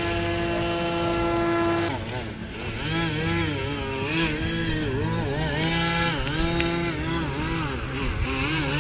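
RC swamp boat's electric motor and air propeller whining, held at a steady pitch for about two seconds, then dipping and rising and falling over and over as the throttle is worked.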